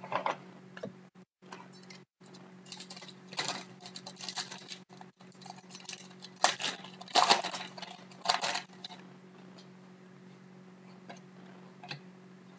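A foil hockey card pack and its cards being handled: crinkling and rustling in several bursts, loudest between about three and nine seconds in. After that it settles to quieter card shuffling.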